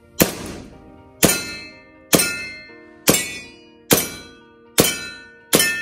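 Inokatsu M1911A1 steel gas-blowback airsoft pistol firing on a CO2 magazine: seven single shots about one a second, each a sharp crack with a short fading tail.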